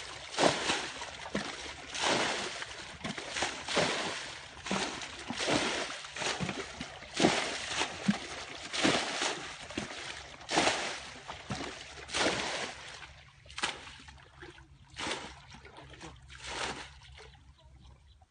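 Plastic buckets scooping and dumping muddy water as a shallow ditch is bailed out, one splash about every second, growing sparser near the end.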